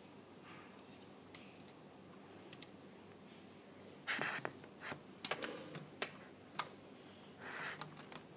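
Lego plastic pieces clicking and clattering as the model and its minifigures are handled: a few faint single clicks, then a cluster of sharp clicks with brief rustling about four seconds in, and another short rustle near the end.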